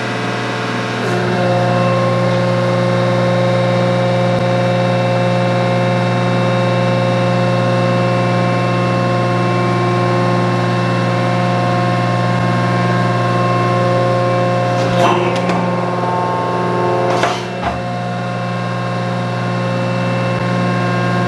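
1943 metal planer running, its table traversing a cast-iron straight edge under the cutting tool with a steady mechanical hum made up of several fixed tones. The hum swells about a second in, and two short knocks come about three quarters of the way through.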